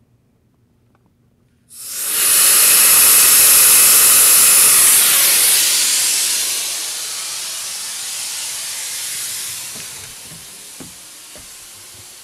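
Compressed air hissing out of a school bus's rear air-brake tank through its opened drain valve. It starts suddenly about two seconds in, is loudest for a few seconds, then eases to a weaker steady hiss as the tank pressure falls. The tank is drained to check that the low-air warning comes on before 60 PSI and that the two-way check valve holds the front system.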